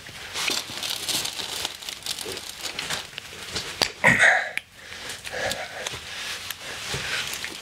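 Small metal scrapes and clicks from a hook tool prying and picking at the old shaft seal of a hydraulic motor. The seal is rusted fast in its seat. A brief louder sound comes about four seconds in.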